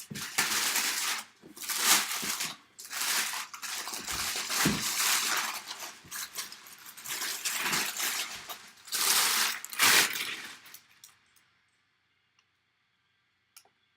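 Shrink-wrap plastic on a cardboard box crinkling and tearing as it is pulled off, in a run of irregular rustling bursts that stops about 11 seconds in.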